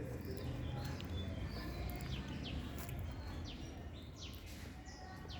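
Outdoor background noise, a steady low rumble, with small birds giving short quick falling chirps every so often.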